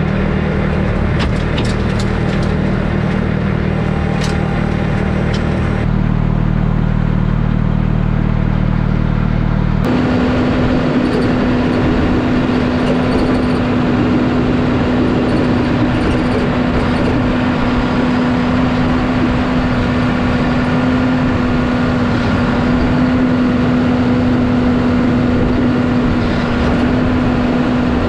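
Diesel tractor engines running steadily under load while clearing snow. First a tractor driving a snowblower. Then, after an abrupt change about ten seconds in, a John Deere loader tractor pushing snow, its engine a steady drone.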